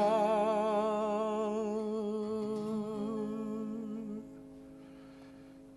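A man's voice holds the last sung note of the song with vibrato over an acoustic guitar chord. The voice fades out about two seconds in, and the guitar chord rings on, dying away.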